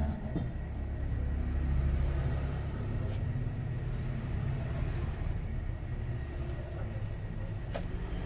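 A motor vehicle engine running, a steady low rumble that eases somewhat after about four seconds. Two sharp clicks sound over it, about three seconds in and near the end.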